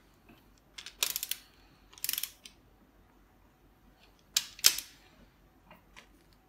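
Ratchet wrench clicking as a connecting-rod cap bolt on a Toyota 5E-FE engine is tightened: short runs of rapid clicks about one and two seconds in, then two sharper clicks about halfway through.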